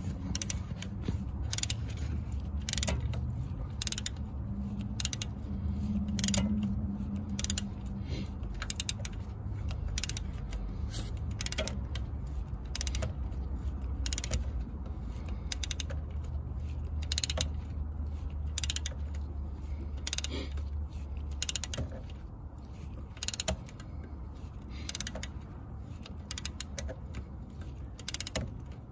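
Ratchet wrench turning a bolt through a socket extension, clicking in short runs about a second apart, over a steady low hum.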